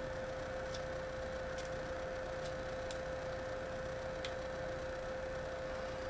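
Faint, irregular metal clicks of needle-nose pliers handling a small hex-head sheet metal screw, about five in all, over a steady hum and hiss.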